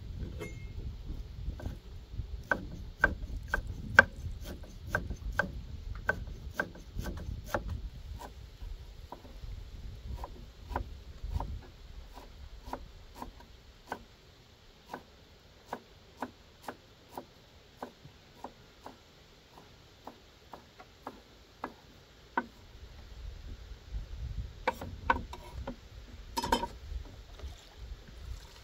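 Cleaver chopping fresh green herbs on a round wooden cutting board, a steady run of sharp knocks about two a second, loudest in the first few seconds.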